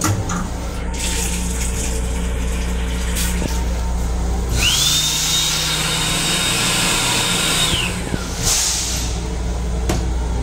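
Built-in hand dryer of an M7 railcar restroom blowing for about three seconds, starting around halfway through. Its motor whine rises as it starts, holds steady under the rush of air, and falls away as it stops, over the steady rumble of the train.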